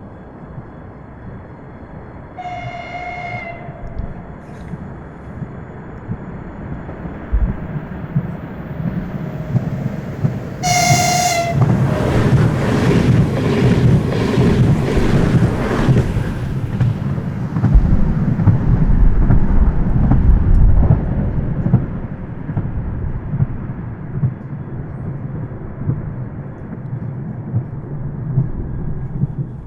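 Electric multiple-unit commuter train sounding its horn twice: a short fainter blast about two and a half seconds in and a louder one around eleven seconds. The train then passes close by with a loud rush and wheel clatter that fades away over the next ten seconds.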